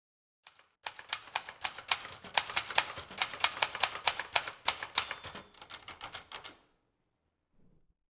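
Manual typewriter keys striking in quick succession, about five strokes a second, stopping about three quarters of the way through. A short ringing tone sounds about five seconds in.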